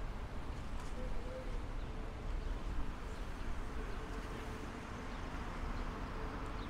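Street ambience: a steady hum of road traffic with a low rumble underneath, and a faint tone that comes and goes.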